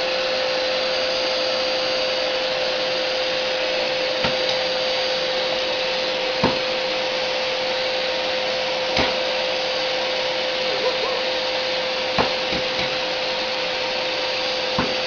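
Vacuum cleaner running steadily, a rushing hiss with a steady whine, and a few short knocks along the way.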